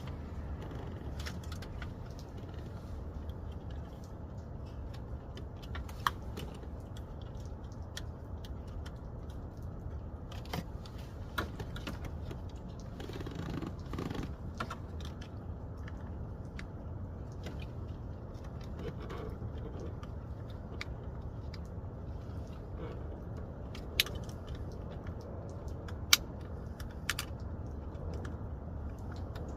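Hands working the plastic tabs and electrical connectors of a car's steering-column multifunction switch: scattered small clicks and rattles, with a few sharp plastic snaps, three of them standing out, over a steady low hum.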